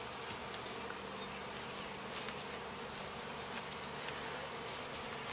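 A mass of honeybees buzzing steadily, with a few faint clicks.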